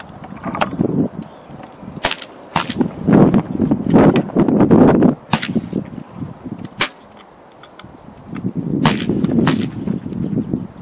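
Air rifles firing at a shooting competition: about six sharp, short cracks, some in close pairs half a second apart, over a low rumbling noise that rises and falls between them.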